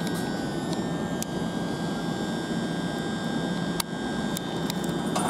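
Great Western Railway Class 387 electric multiple unit standing at the platform, its onboard equipment giving a steady hum and whir with a thin high whine. A few sharp clicks sound through it.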